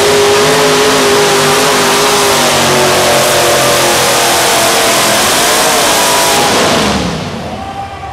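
Modified four-wheel-drive pulling truck's engine running very loud under load as it drags a weight-transfer sled, its pitch wavering as the truck labours. About seven seconds in the revs fall away and the sound drops off sharply as the driver lifts off at the end of the pull.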